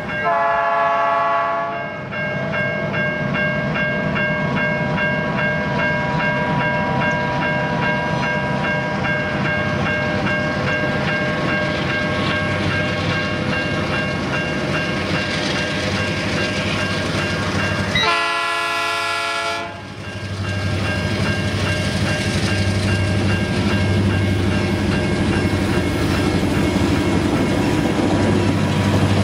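Diesel freight locomotive horn sounding a chord twice, for about two seconds at the start and again about two-thirds of the way through, over the steady running of diesel locomotive engines and train noise. Toward the end the engine sound grows louder as the locomotive approaches.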